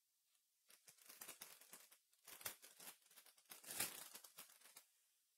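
Trading-card packaging crinkling and tearing as it is opened by hand, a faint run of crackly rustles lasting about four seconds and loudest near the end.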